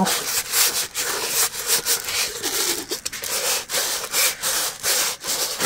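A rolled diamond painting canvas with its plastic cover being handled and smoothed by hand, a run of short rustling, rubbing strokes.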